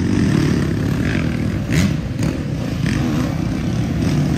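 Several racing dirt bike engines running hard as the bikes ride past on a dirt trail, with a few sharp clacks in between.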